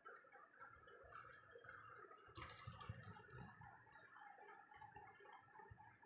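Faint small clicks and ticks over uneven low rumbles from a handheld phone being moved and handled close to a wire budgie cage.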